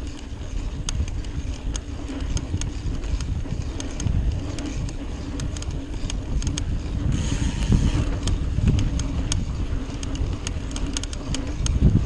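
Trek Fuel EX full-suspension mountain bike rolling along a dirt singletrack: a steady low rumble from the tyres on the dirt, with frequent sharp rattles and clicks from the bike. A brief hiss comes about seven seconds in.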